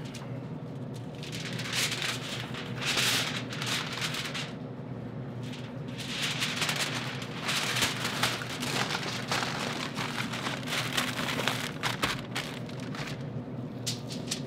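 Heavy-duty aluminium foil crinkling and crackling in uneven bouts as it is folded and crimped around a rack of smoked ribs.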